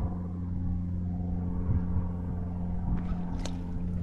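Steady low hum of a boat motor running, with a short click about three and a half seconds in.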